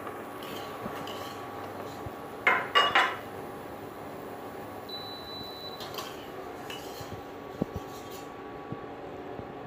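Metal spoon clanking against a stainless steel mixing bowl twice in quick succession about two and a half seconds in, as boiled pork-sausage slices are spooned in, followed by a few lighter clicks. A steady faint hum lies underneath.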